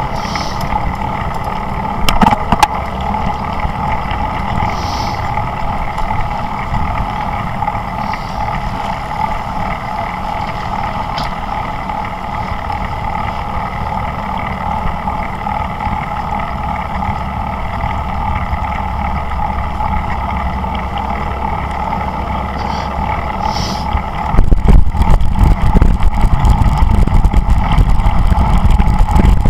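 Steady road and wind noise from a camera riding on a moving bicycle, with a constant whine in it. About 24 seconds in, low wind buffeting on the microphone gets much louder, as from a rise in speed.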